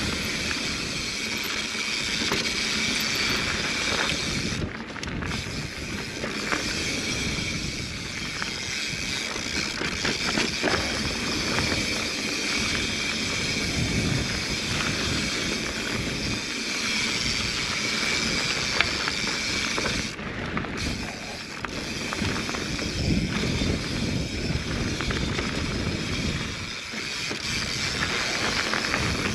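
Mountain bike riding fast down a dirt singletrack: a steady rush of wind on the camera microphone, with tyre and drivetrain noise and frequent small knocks and rattles from the bike going over bumps.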